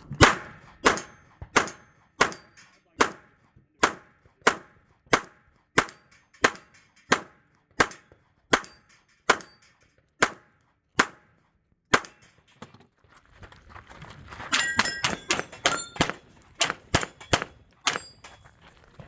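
A string of pistol shots, about one and a half a second, for about twelve seconds. After a short pause comes a faster flurry of shots with metallic ringing.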